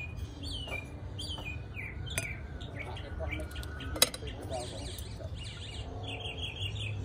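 Small birds chirping over and over, with metal tongs clinking against ceramic plates and one sharp clack about four seconds in.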